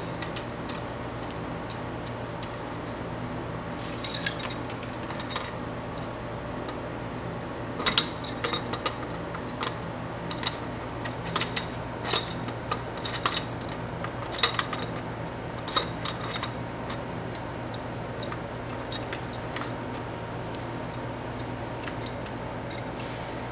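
Scattered small metallic clicks and clinks as the bike's front axle nuts and washers are threaded on and hand-tightened against the fork, most of them in the middle of the stretch. A faint steady hum lies underneath.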